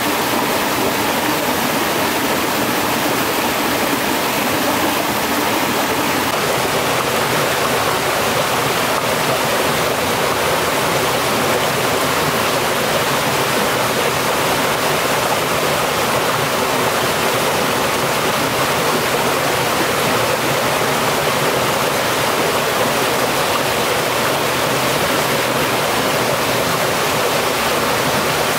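Stream water rushing steadily over rocks, a dense, even rush, its tone shifting slightly about six seconds in.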